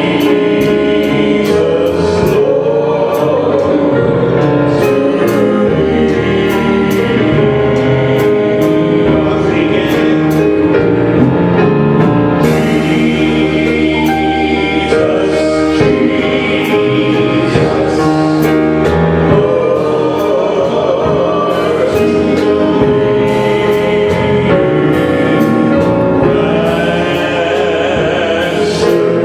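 Gospel worship song: a group of voices singing together over instrumental accompaniment, continuous and steady in loudness.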